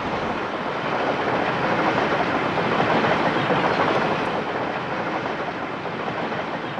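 Steam train passing on the rails, a dense rumble and clatter of wheels that grows louder to a peak about three seconds in and then fades away.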